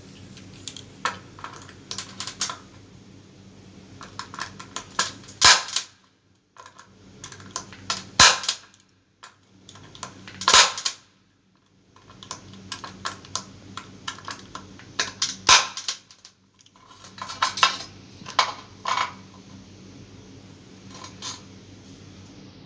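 Spring-loaded impact punch-down tool snapping as it seats and trims Cat 6 wires in a patch panel's insulation-displacement contacts: four loud sharp snaps a few seconds apart, among lighter clicks and tapping as the wires and tool are handled.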